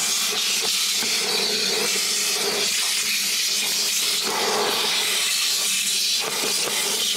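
Vacuum cleaner running steadily with its crevice tool in a car's center console storage bin: a constant rush of air over a steady motor hum.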